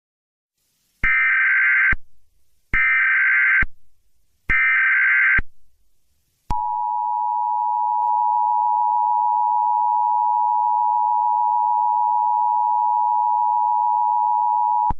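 Emergency Alert System SAME header: three short bursts of warbling data tones, then the two-tone attention signal held steady for about eight seconds. Together they announce the start of a new alert.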